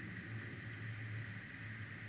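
Steady low hum under a constant hiss, unchanging throughout: the background noise of the nest camera's live microphone, with no bird calls.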